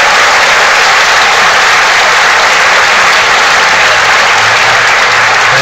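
Audience applauding steadily, dense even clapping welcoming an inductee to the podium.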